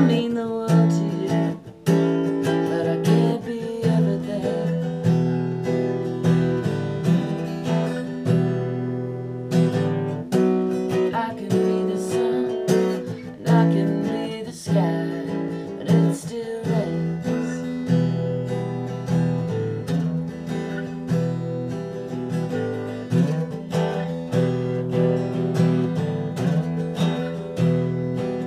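Acoustic guitar strummed in a steady rhythm, playing an instrumental chord passage.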